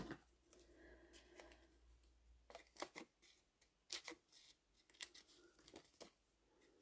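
Small craft scissors snipping through a sheet of white paper: a run of faint, short snips in small clusters, starting about two and a half seconds in, with light paper handling before them.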